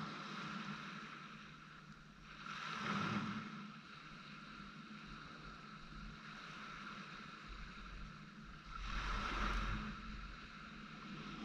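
Small waves washing up on a sandy beach, two swells of surf noise about six seconds apart, with wind rumbling on the microphone during the second.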